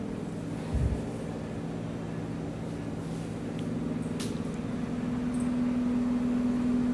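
A steady low hum from a running motor or appliance, growing a little louder near the end, over faint squelching of thick egg batter being stirred with a spoon in a glass bowl. A soft thump comes about a second in.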